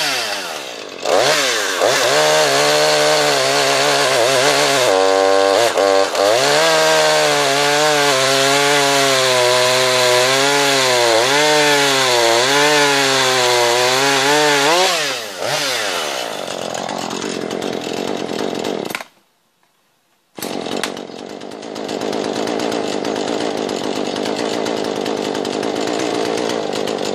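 Jonsered CS2240 two-stroke chainsaw revving up and cutting through a log, its engine pitch wavering and dipping as the chain loads in the wood. About fifteen seconds in it drops back, and it cuts off a few seconds later. After a second of silence a steadier, rougher engine-like noise runs on.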